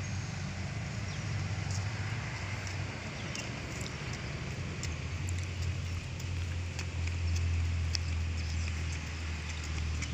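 Outdoor ambience: a steady low rumble, loudest a little past halfway, with light irregular ticks of footsteps on paving stones.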